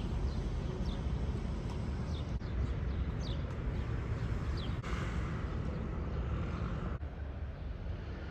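Outdoor ambience: a steady background rumble and hiss, with a bird giving several short, high, downward-sliding chirps in the first half. The background changes abruptly twice, near the middle and near the end.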